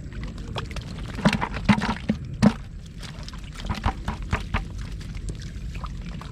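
Water splashing and sloshing with a run of sharp knocks, the loudest cluster about a second to two and a half seconds in, then lighter scattered knocks and splashes.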